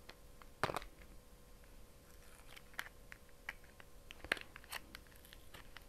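Small cardboard box being prised open by fingers and nails: faint scattered clicks and scratches of stiff card, with two sharper clicks, one about a second in and one after about four seconds.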